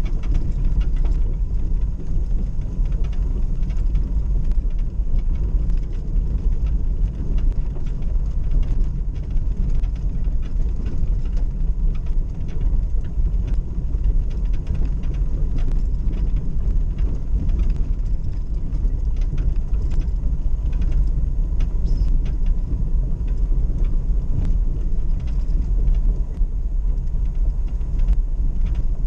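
Cabin noise of a Suzuki 4x4 driving slowly over a rough gravel track: a steady low engine and tyre rumble with frequent small clicks and rattles.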